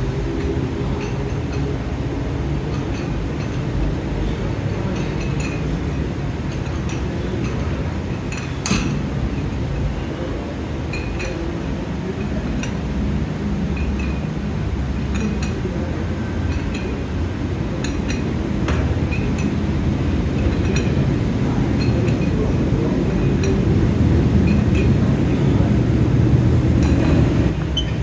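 Gym ambience: a steady low rumble with scattered metallic clinks of weights, the sharpest about nine seconds in. The rumble grows louder near the end.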